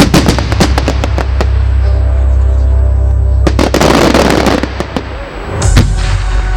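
Fireworks going off over loud music: a rapid string of bangs and crackles at the start, a dense crackling burst about halfway through, and a single bang near the end. Music with a heavy bass plays underneath throughout.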